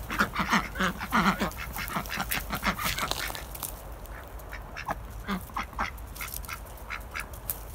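A small flock of domestic ducks quacking as they walk, a quick run of short quacks in the first three seconds, then fewer and more spaced out.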